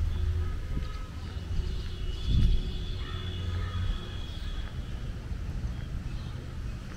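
Outdoor park ambience: a steady low rumble with birds calling over it, and a single dull thump about two and a half seconds in.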